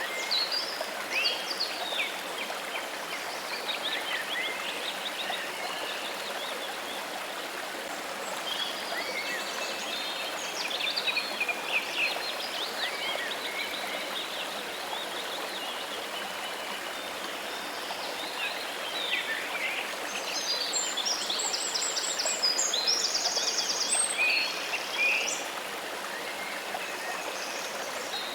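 Steady rush of running water, with birds chirping and singing over it throughout and most busily near the end.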